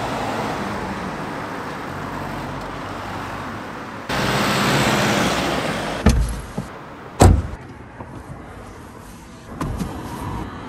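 Street traffic noise with a car going past, louder from about four to six seconds in, then a car door opened with two sharp thumps and a few smaller clicks.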